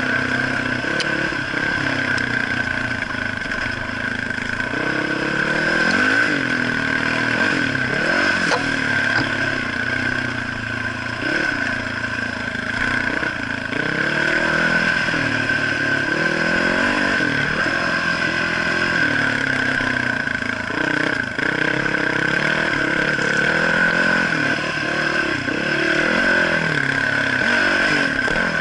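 Dirt bike engine rising and falling in pitch over and over as the throttle is worked along a rough bush track, with a steady high whine running under it.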